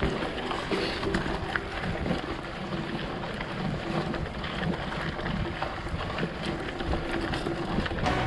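Wind buffeting the microphone over the rumble of a mountain bike rolling along a trail, with scattered short rattles and knocks.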